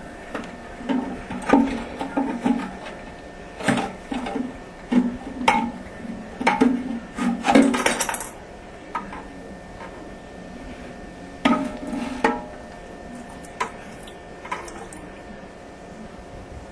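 Irregular knocks and clatter of hard parts being handled: a removed toilet fill valve and the tank, set down and turned over. Dense for the first half, then a few scattered clicks.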